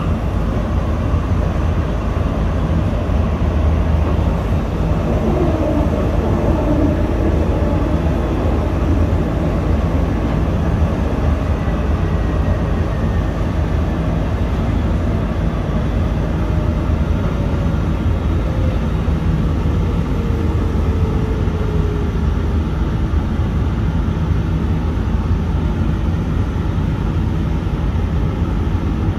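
Steady low rumble of a Dubai Tram car running, heard from inside, with a faint whine that slowly falls in pitch past the middle as the tram slows.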